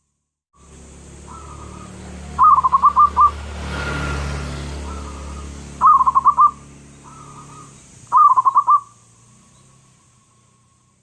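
Zebra dove (perkutut) cooing: three short bursts of quick repeated notes, about two and a half, six and eight seconds in, with softer calls between them over a low steady hum.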